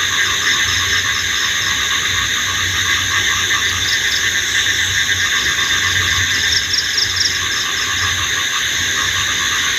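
Night chorus of crickets and other insects, a steady dense trilling at several pitches, with a low pulsing throb underneath.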